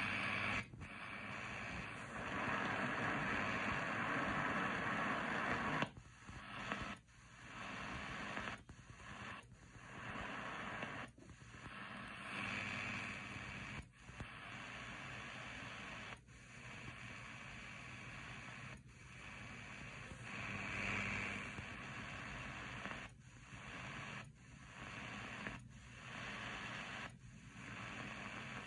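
Eton Field BT Grundig Edition radio's speaker hissing with AM medium-wave static while it is tuned up the band. The sound cuts out briefly about a dozen times, each time the set steps to a new frequency.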